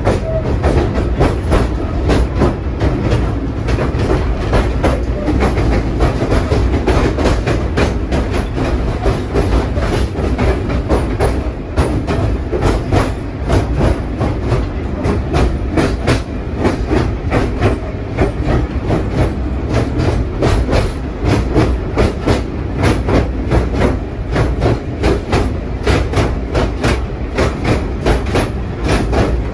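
Vintage wooden carriage of a small electric pier train running along the track, heard from inside the car: a steady low rumble with frequent clicking and clattering from the wheels on the rails.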